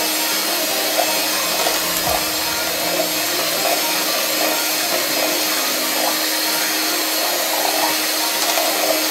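Electric hand mixer running steadily, its beaters whirring through a liquid mixture in a steel pot.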